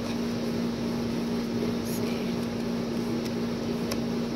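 Steady mechanical hum of a room appliance, an even drone with one constant low tone, with a few faint ticks.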